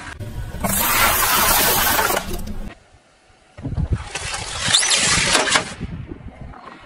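Car tyre rolling over rolls of Mentos mints, a crunching hiss lasting about two seconds. After a short quiet gap, a car tyre rolls onto a bundle of long modelling balloons, which burst with several pops and a brief squeak.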